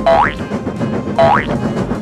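Cartoon boing sound effect: a quick upward pitch slide, heard twice about a second apart, over a steady noisy background.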